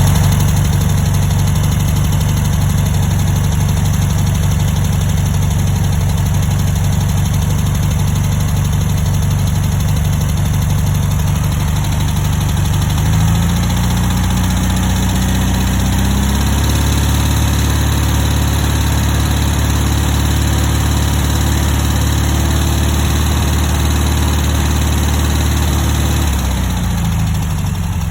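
1960 Volkswagen single-port air-cooled flat-four engine idling, then brought up to a faster steady speed about halfway through, held there for about ten seconds, and dropped back to idle near the end. The running carries an unidentified noise that the owner says gets worse once the engine is warm, on an engine whose number two cylinder burns a little oil.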